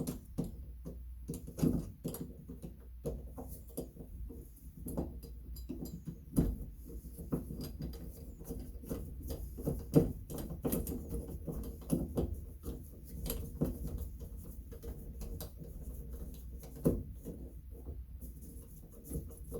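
Irregular small clicks, taps and scrapes of shower faucet trim parts being handled and fitted by hand, as a screw is worked toward its hole in the valve stem. The sharpest tap comes about ten seconds in.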